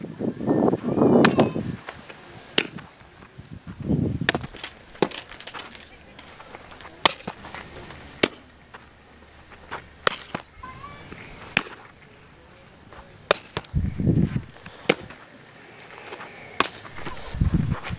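Softballs popping into leather fielding gloves as throws are caught: a sharp pop every second or two, about a dozen in all.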